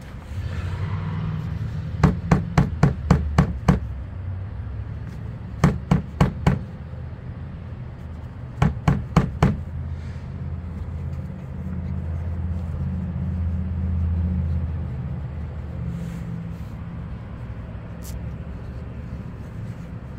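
Sharp knocking at a Cadillac's exhaust pipe as it is handled from underneath, in three quick runs of about four to eight knocks each, over a steady low hum.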